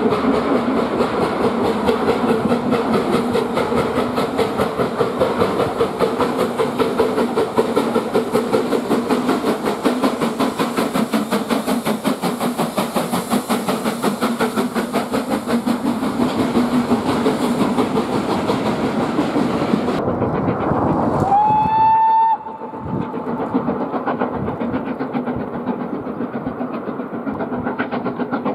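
BR Standard Class 4MT 4-6-0 steam locomotive No. 75078 working past with a rapid, steady beat of exhaust chuffs. About 21 seconds in, after a cut, comes a single steam whistle blast of about a second, rising in pitch as it opens and then holding. Fainter, more distant steam-train chuffing follows.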